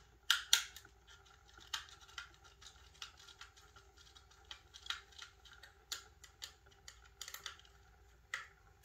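Motorised display turntable running: light, irregular clicking and ticking over a faint steady hum.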